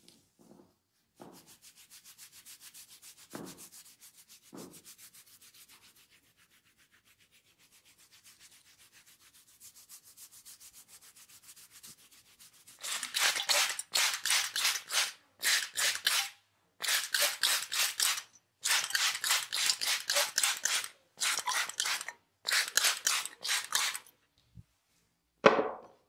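Fingers scratching through a man's scalp and curly hair, a faint, fast rasping. About halfway through come loud bursts of hissing, each about a second long and some seven in all, from an aerosol water spray aimed at the hair.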